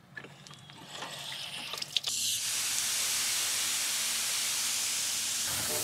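Garden hose spray nozzle: a few faint handling clicks, a sharp click about two seconds in, then water spraying out with a steady, even hiss.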